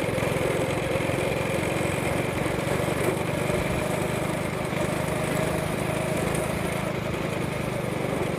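Single-cylinder Predator 212 go-kart engine running steadily, with no marked revving up or down.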